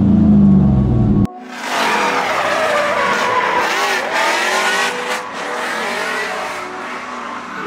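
Drift car with an LS V8 swapped into a Nissan 350Z: a steady engine note from inside the cabin cuts off about a second in. Then the car is heard from trackside, its engine revving up and down while the tyres squeal in a slide.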